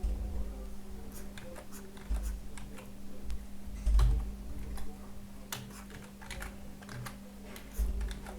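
Irregular clicking of computer keys, with a few dull thumps on the desk, the loudest about four seconds in, over a steady low hum.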